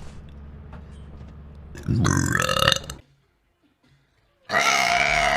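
A girl burps loudly for about a second, about two seconds in. After a short silence a second, longer belch begins near the end.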